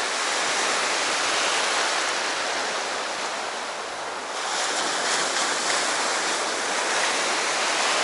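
Sea surf washing onto the shore, a steady rush of noise that eases briefly about four seconds in and then builds again.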